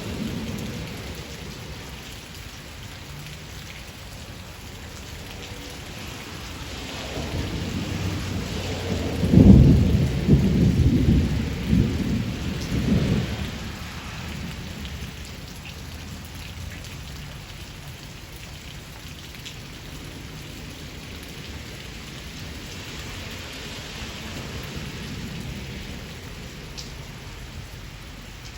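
Steady rain shower falling throughout, with a roll of thunder a quarter of the way in. The thunder builds, cracks loudest near the middle, and rumbles on in a few surges before dying away.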